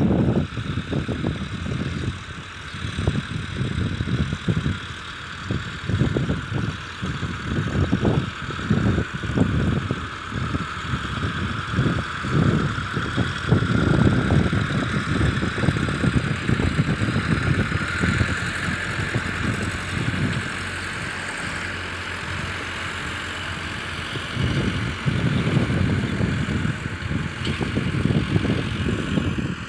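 Massey Ferguson 385 tractor's diesel engine working steadily while pulling a disc harrow through the soil, under irregular low rumbling gusts of wind buffeting the microphone.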